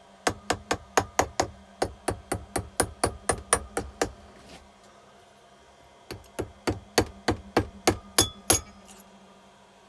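Socket ratchet clicking at about four clicks a second while running down 6mm engine bolts, in two runs with a pause of about two seconds between them.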